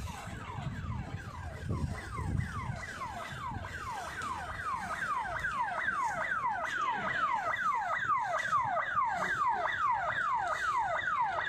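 Electronic siren sounding a rapid run of falling whoops, about three a second, fading in about a second in and growing steadily louder. A low rumble lies under the first few seconds.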